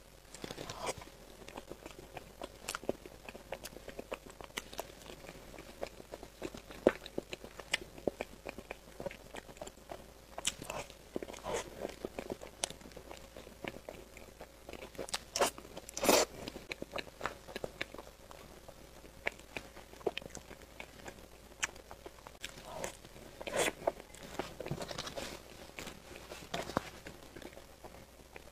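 Close-miked eating sounds of a soft matcha cream layered cake: moist chewing and lip smacks with a spoon scraping and scooping in a plastic cup, heard as scattered sharp clicks and smacks with louder clusters now and then.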